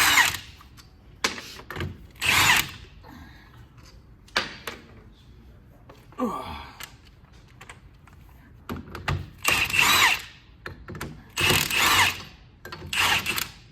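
Power tool, most likely an impact wrench, running the ring gear bolts off a Ford 9-inch differential carrier in several short bursts of under a second each, with a few sharp metal clicks between them.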